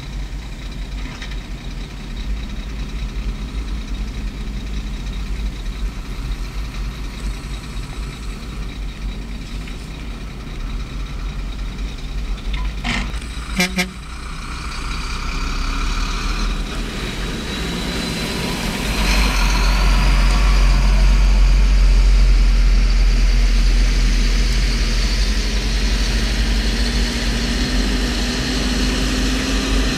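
Diesel engines of an excavator and a Shacman dump truck running at a loading site, with a couple of sharp knocks near the middle. Past the halfway point the engine noise grows louder, and its pitch slowly climbs toward the end as the loaded dump truck pulls away.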